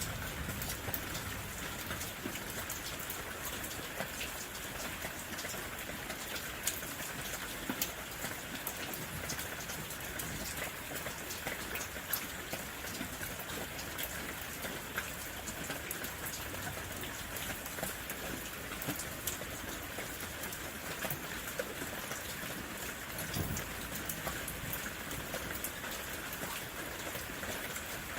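Steady rain falling, an even hiss with many individual drops pattering and ticking on leaves and surfaces.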